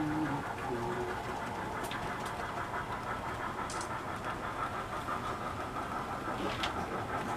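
Model freight train running on a layout's track: a steady rolling rumble with a fast, even clicking from the wheels and cars.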